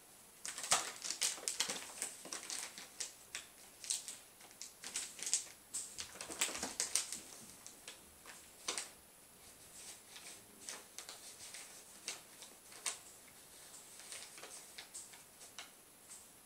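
A cat's claws scrabbling and picking at the clear plastic wrap around a rolled-up rug: an irregular run of crinkles and clicks, dense for the first seven seconds or so, then sparser.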